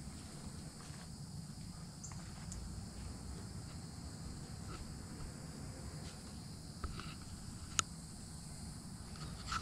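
Steady, high-pitched drone of insects chirring over a low rumble, with a sharp click near the end.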